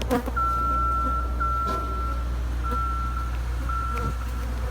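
Boom lift's motion alarm beeping, a single high tone in long beeps with short gaps, about four in a row, as the boom is lowered. Underneath is a steady low hum.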